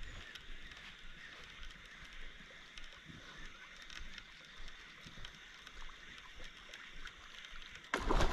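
Faint, steady outdoor ambience of river water flowing, with a few soft knocks. Near the end, a sudden loud knock of handling breaks in.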